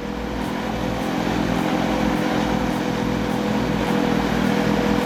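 Heavy machinery engine running at a steady pitch, with a constant hum of even tones over a broad mechanical noise.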